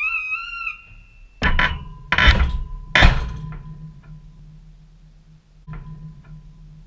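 Heavy knocks and clunks inside a dishwasher, heard from within the machine, each leaving a brief metallic ring. A short warbling electronic tone sounds at the very start, a low steady hum runs on after the knocks, and two light clicks come near the end.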